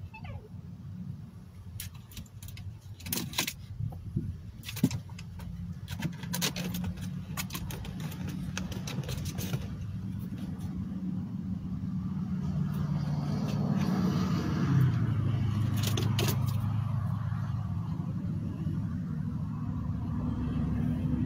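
Vehicle engine running, heard from inside the cab as a low hum that grows louder and changes pitch about fifteen seconds in. Scattered clicks and rattles in the first ten seconds, and again about sixteen seconds in.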